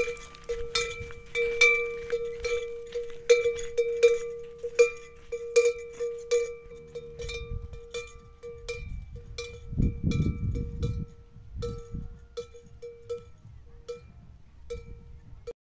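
Metal bell hanging from a walking camel's neck, clanking with each stride at about two strikes a second, the strikes growing sparser and fainter in the last few seconds. A low rumble rises briefly about ten seconds in.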